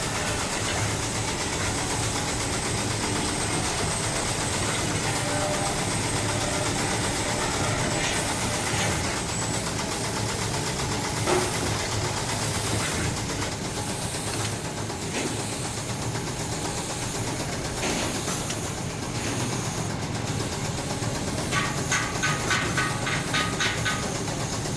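Steady hissing noise of factory machinery, with a single knock about eleven seconds in and a fast run of rapid ticks near the end.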